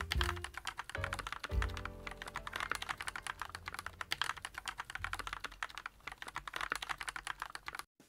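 Fast, continuous typing on a JAMESDONKEY RS6 mechanical keyboard with Gateron G Pro switches and PBT keycaps: a dense run of key clicks that stops just before the end. Quiet background music plays underneath.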